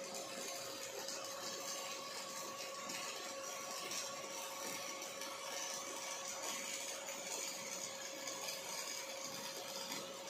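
An OTC industrial robot MIG-welding steel: the welding arc makes a steady hiss over a constant tone, without break.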